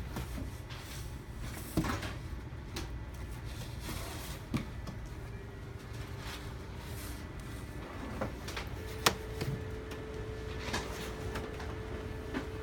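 Scattered clicks and knocks of male and female push-in rivets being pressed together and folded bin panels being handled, with the sharpest snap about nine seconds in.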